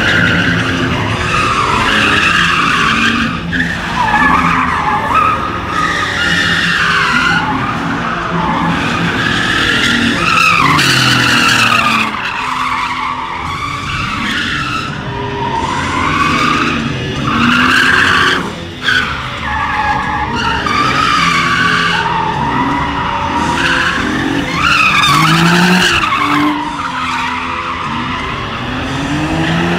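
Mostly stock Nissan 370Z's 3.7-litre V6 revving up and down while the car spins donuts, its rear tyres squealing in long, wavering screeches.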